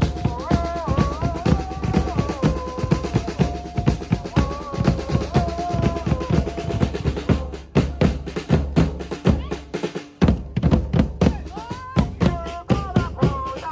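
Music of fast, dense drumming with a held melody line over it; the melody drops out about halfway through, leaving the drums alone, and comes back briefly near the end.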